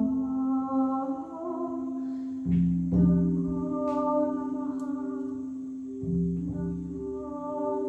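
Frosted quartz crystal singing bowls ringing with one steady held tone, a lower bowl tone swelling in about two and a half seconds in and again about six seconds in. A voice sings softly over them in long held notes.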